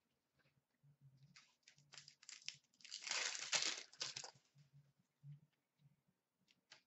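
A 14-15 Upper Deck Series 2 hockey card pack's wrapper crinkling and tearing as it is ripped open, building over a couple of seconds and loudest for about a second and a half in the middle, then a few light clicks of cards being handled.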